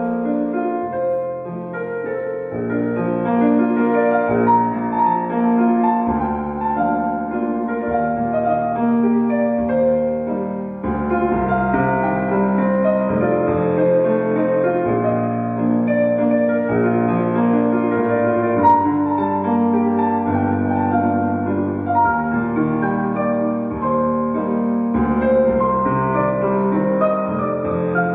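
Solo piano music playing slow, sustained phrases, the kind of accompaniment used for a ballet class exercise.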